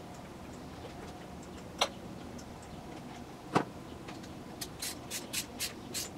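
Socket ratchet clicking as a spark plug is tightened into the cylinder head: two single sharp clicks, then near the end a run of about six clicks, roughly four a second.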